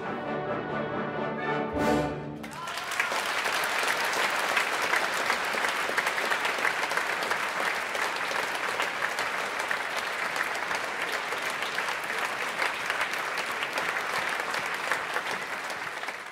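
An orchestra, brass to the fore, plays the last bars of a ballet number. About three seconds in, an audience breaks into steady applause that carries on to the end.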